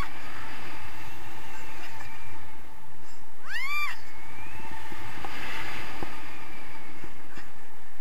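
Steady wind rushing over the camera microphone in flight under a paraglider, with one short high squeal from the tandem passenger, rising and falling in pitch, about three and a half seconds in.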